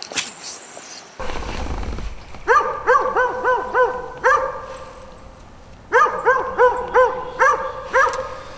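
A dog barking in two runs of quick, evenly spaced barks, about three a second, with a pause of a second or two between the runs: a watchdog's alarm barking that goes on and on.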